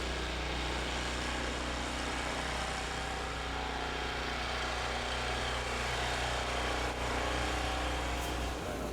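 An engine running steadily at an even pitch, with a low hum underneath.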